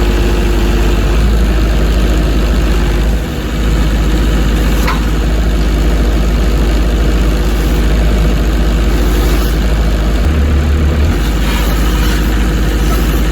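Volvo ECR88 compact excavator's diesel engine running steadily under hydraulic load while the machine works a newly fitted track onto its sprocket and idler. There are a couple of light clanks, and the low engine note shifts about ten seconds in.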